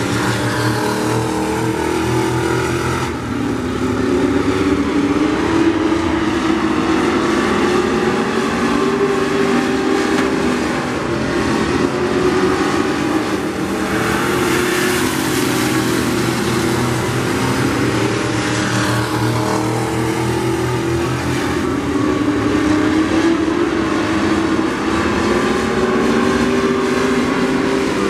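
Engines of vintage-bodied dirt-track race cars running hard around the oval, repeatedly rising and falling in pitch as the cars accelerate and lift.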